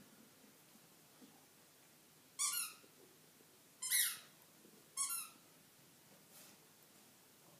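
Dog chewing a squeaky toy ball: three loud, short squeaks about a second apart, then a faint fourth squeak.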